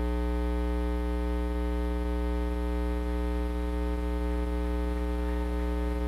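Steady electrical mains hum with a stack of overtones, unchanging in pitch and level, with nothing else standing out.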